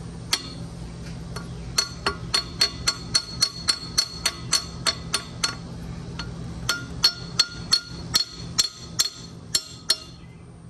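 Hammer lightly tapping on the hub of a seized V-belt pulley on an air-compressor electric motor's shaft, each tap a short metallic ring. About three taps a second in two runs with a brief pause between. The taps are kept light so as not to damage the motor's bearings.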